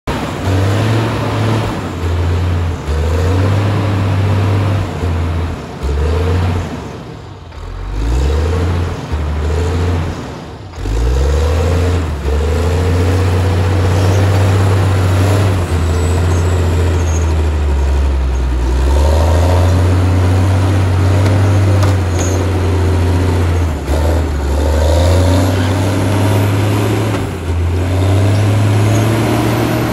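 2010 CAT 545C grapple skidder's diesel engine running under load as the machine drives and manoeuvres, its pitch rising and falling with the throttle. The engine eases off twice in the first ten seconds or so, then holds higher revs for the rest.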